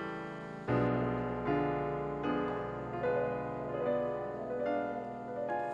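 Background piano music: slow, gentle notes and chords, a new one struck about every second and left to ring and fade.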